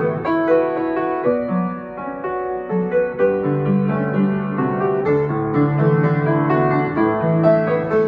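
Solo upright piano played, a short, fun original piece moving in a steady stream of notes and chords.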